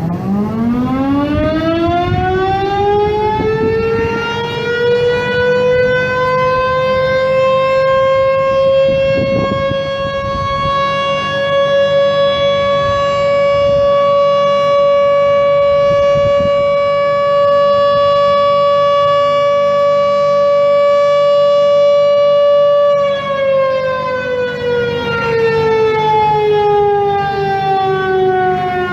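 Outdoor civil-defense warning siren sounding a test: it winds up from a low pitch to a high steady wail over the first several seconds, holds that tone, then about 23 seconds in begins winding down with a steadily falling pitch.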